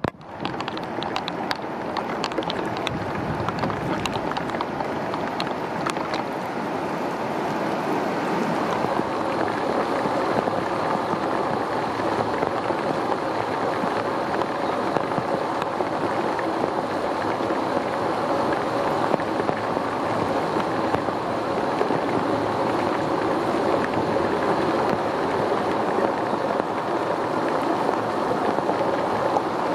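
Heavy typhoon rain pouring down in a steady, dense hiss. Sharp drip-like ticks sound through it during the first few seconds.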